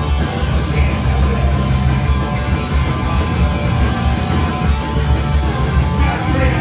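Punk rock band playing live: loud distorted electric guitar, bass and drums.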